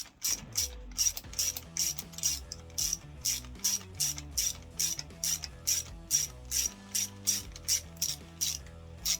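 Ratchet wrench worked in quick, even strokes, about three a second, over background music with a bass line.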